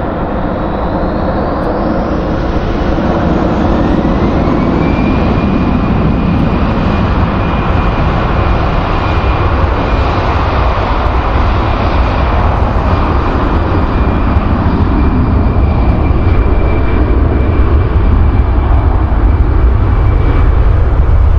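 Jet airliner's engines running loud, a deep rumble with a high whine that rises about four seconds in and then holds steady while the sound slowly grows louder.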